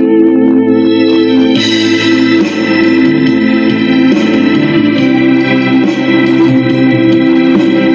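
Electronic organ-style keyboard music playing held chords. About a second and a half in, a brighter layer with a steady beat comes in.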